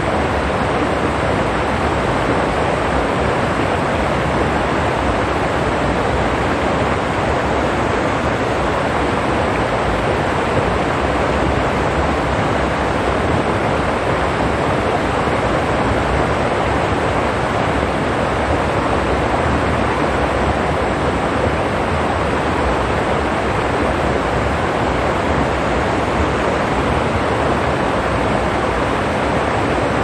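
Water of a rocky stream rushing steadily over stones, an even, unbroken rush.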